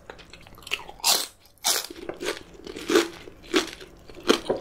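Close-miked biting and chewing of a Buldak (fire-chicken spicy) dumpling: a run of short, loud chews about every half second, the loudest about a second in.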